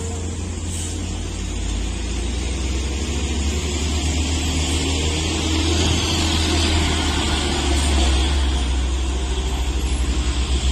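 Heavy diesel engine of a tour bus crawling around a hairpin bend, a steady low rumble that grows louder as the bus comes close.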